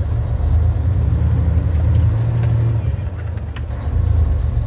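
Semi-truck's diesel engine running as the truck rolls slowly, a steady low rumble heard from inside the cab, with a few faint clicks.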